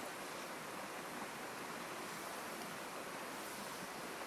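Steady rushing of a flowing river, an even hiss with no distinct events.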